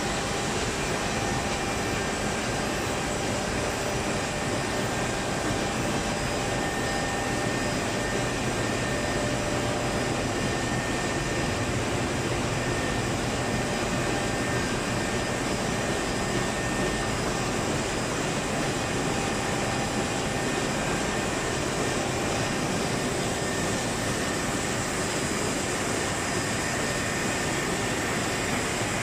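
Adult diaper production line running: a steady mechanical whir and hum with a few faint steady whines.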